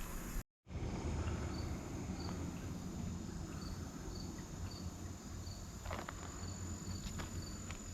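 Insects chirping outdoors: a steady high trill with short chirps repeating about twice a second, over a low rumble. The sound drops out briefly near the start, and a few sharp clicks or knocks come near the end.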